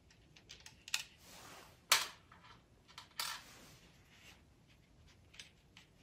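Nylock nuts being turned off the U-bolt of a Concept2 rower handle by hand: scattered small metallic clicks and scrapes, the sharpest about a second in and the loudest about two seconds in.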